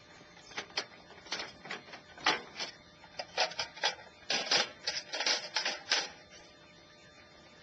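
Green hard-plastic case being handled, opened and set down on a metal fold-out bench, with its wire legs clicking: a run of sharp clacks and knocks that come thickest between about three and six seconds in.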